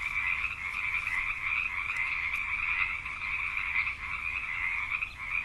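A chorus of many frogs calling at once, their calls overlapping into a continuous, shimmering trill with no breaks.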